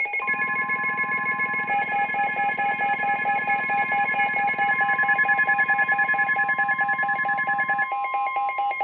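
Emergency alert attention tones: several steady, loud alert tones sounding together over a rapid even pulsing, which cuts off about eight seconds in while one tone holds on. The tones herald a new severe thunderstorm warning.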